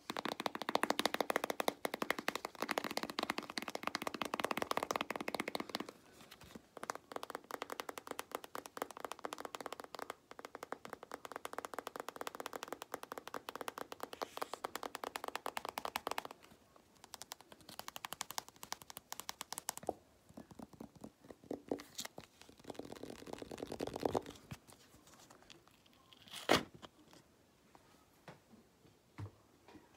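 Fingers tapping and scratching a small plastic tub of slime, making dense, rapid crackling clicks in long runs. The runs thin out in the last third, with a few single sharp clicks.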